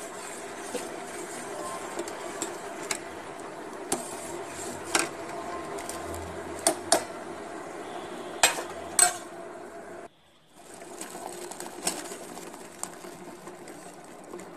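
Metal spoon clinking against a steel pan while stirring hot agar-agar and tender-coconut-water syrup: about ten sharp clinks spread out over a steady low hum. The sound cuts out for a moment about ten seconds in.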